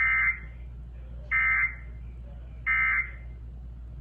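Emergency Alert System end-of-message signal: three identical short bursts of rapid two-tone digital data (the SAME 'NNNN' code), about 1.3 seconds apart, marking the end of the alert.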